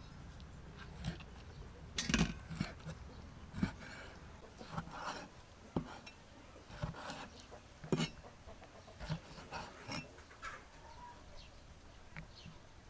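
Cleaver cutting raw pig stomach on a wooden chopping board: irregular knocks, roughly one a second, as the blade strikes the board, the loudest about two seconds in.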